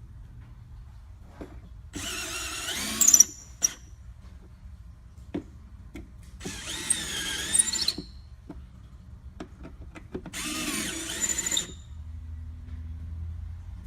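Power drill run in three short bursts of about a second and a half each, its motor pitch wavering as the trigger is worked, with a few light clicks in between.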